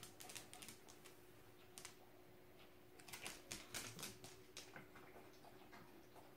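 A corgi's claws clicking faintly on a vinyl kitchen floor as it trots around, with a quick flurry of clicks about three seconds in. A faint steady hum runs underneath.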